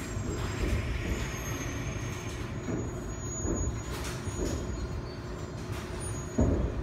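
Inside a retrofitted resistance-control Seoul Subway Line 1 electric train slowing to a stop at a station platform: steady rumble of wheels and running gear under braking, with a sudden louder thud near the end.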